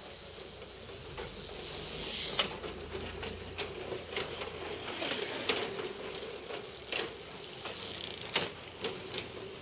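Kyosho dNaNo 1/32-scale electric RC cars running: a thin steady whir of tiny motors and tyres that grows louder about a second in, with about eight sharp clicks and knocks scattered through it.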